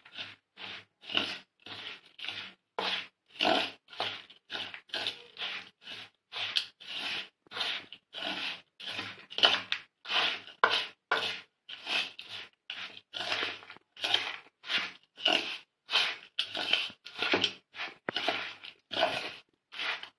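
A hand mixing a dry, crumbly filling of roasted mawa, coconut, sugar and nuts in a steel bowl. It makes rhythmic rubbing and scraping strokes, about two a second.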